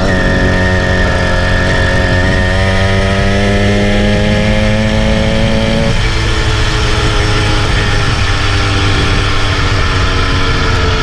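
Small motorised-bicycle kit engine running under way. Its pitch steps up at the start, drifts as the throttle is held, and drops about six seconds in.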